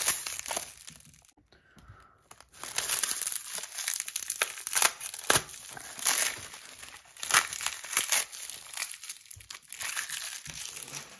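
Packaging being unwrapped by hand, crinkling and tearing. A short burst at the start, a brief lull, then continuous crinkling with sharper crackles from about two and a half seconds in until near the end.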